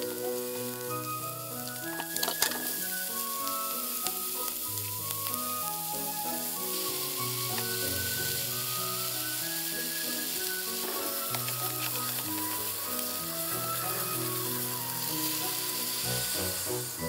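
Chicken, onion and spinach stems sizzling in a nonstick frying pan and being turned with a spatula, with a sharp clack about two seconds in. The sizzle grows brighter near the end as soy milk is poured in. Light background music with plucked notes plays over it.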